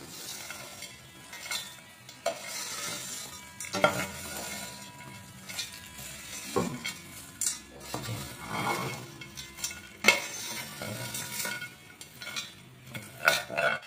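Perforated steel spoon stirring and tossing crisp fried sprats, onions and dried chillies around a stainless steel pot. There are irregular metal scrapes and clinks against the pot over a dry rustling crackle.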